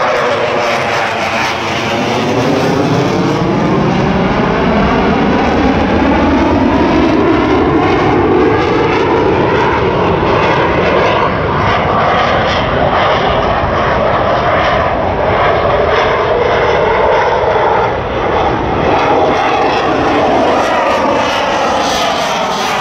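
Fighter jet flying low past overhead: a loud, continuous jet roar that lasts over twenty seconds, its tone sweeping and shifting as the aircraft approaches and passes.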